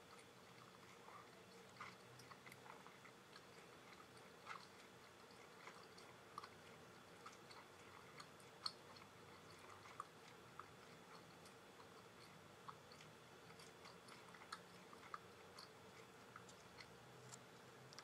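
Near silence: a faint steady hiss with scattered soft clicks, a few a second, at irregular intervals.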